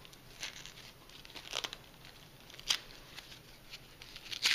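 Plastic film crinkling and tearing as a rockwool starter cube is pulled free of its plastic-wrapped sheet: a few sharp crackles, the loudest near the end.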